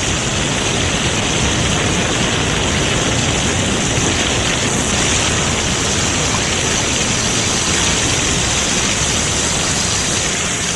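Steady rushing hiss of water jetting from a high-pressure fire hose.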